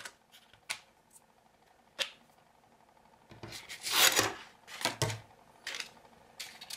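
Sheets of emery cloth being handled, rustling and flexing, with a few light clicks of things set down on the desk; the loudest rustle comes about four seconds in, followed by a couple of shorter ones.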